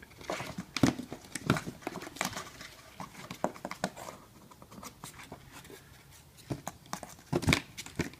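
A cat moving about in a box: irregular scratching, rustling and light knocks, with the loudest knock about seven and a half seconds in.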